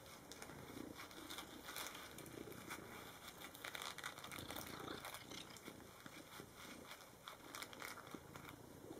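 Faint, irregular scratchy rasping of a slicker brush's wire bristles against a cat's face and fur as the cat rubs and mouths the brush.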